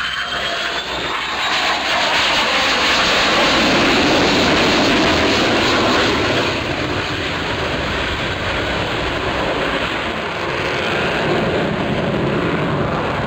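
F-22 Raptor's twin F119 turbofan jet engines during an air show pass. The jet noise swells about a second and a half in, is loudest over the next few seconds, then eases a little while staying loud.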